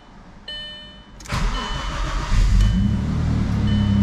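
Audi B5 S4's 2.7-litre twin-turbo V6, on a fresh stage 2 tune and full XS Power exhaust, heard from inside the cabin: an electronic chime, then about a second in the engine cranks and fires, revs up briefly and settles into a steady idle. A short high beep repeats about once a second once it is running.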